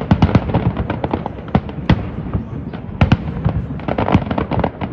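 Aerial firework shells bursting in rapid succession: a dense run of sharp bangs over a continuous low rumble. The bangs are thickest in the first half-second and again from about three seconds in.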